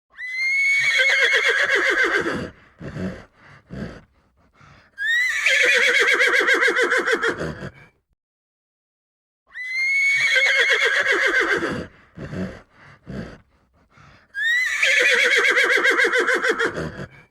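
Horse whinnying: two long whinnies that start high and waver downward, with a few short sounds between them, then after a short pause the same sequence again.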